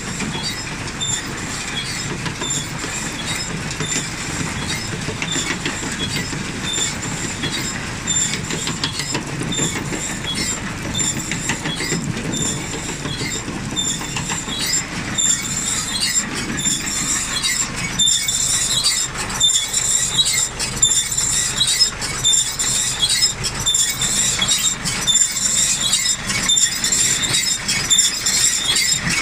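Claas Rollant 255 RotoCut roller-chamber round baler running empty: its rollers and drive chains keep up a steady rattling clatter with repeated high metallic squeaks, which grow louder about halfway through.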